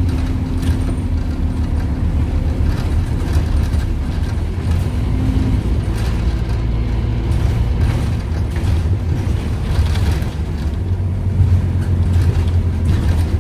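Inside a Scania N230UD OmniCity double-decker bus on the move: a steady low drone from its Scania DC9 engine and ZF 5HP500 automatic gearbox, with interior fittings rattling throughout. A steady whine dies away about two seconds in and comes back briefly around five seconds.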